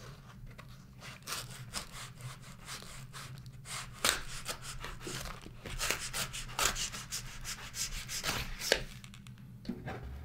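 Shipping package being opened by hand: irregular rubbing and scraping of cardboard and packaging, with sharp clicks and snaps now and then.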